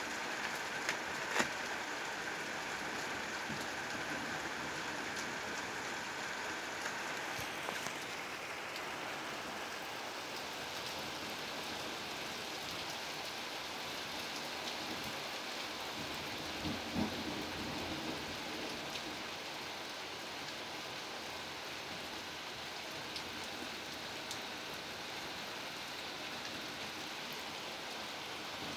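Steady, unbroken rushing noise of a night thunderstorm, without a deep rumble, that goes on without pause; the recordists hear it as constant, non-stop thunder. A few faint clicks stand out, one about a second and a half in and a couple near the middle.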